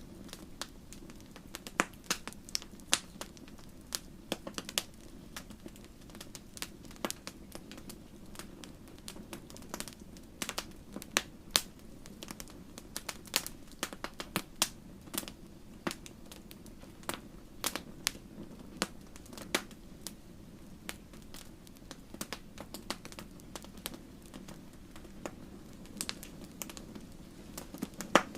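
Wood fire crackling in a fireplace: irregular sharp pops and snaps, sometimes several a second, over a soft steady low rush.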